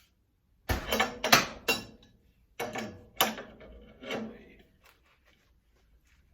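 Metal clanks and clicks of tools being handled against a stomp shear while its guard is being taken off: a quick run of knocks about a second in, another group around three seconds, and a few more near four seconds.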